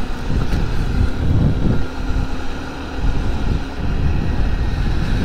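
Honda Monkey's single-cylinder four-stroke engine running as the bike cruises along, with wind buffeting the microphone.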